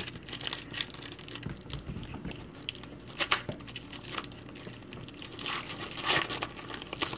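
Foil wrapper of a trading card pack being torn open and crinkled in the hands, a run of irregular crackles and rustles that swells about six seconds in.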